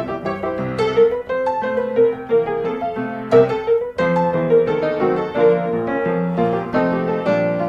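Background piano music, a light tune of quick notes.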